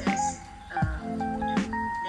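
Background instrumental music: clear held notes over a light beat.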